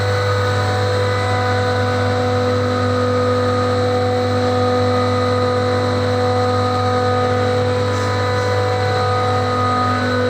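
HVAC chiller plant machinery running: a steady low hum with several constant tones above it.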